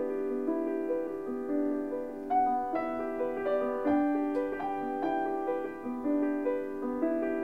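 Background piano music: single notes struck one after another and left to ring, overlapping into chords.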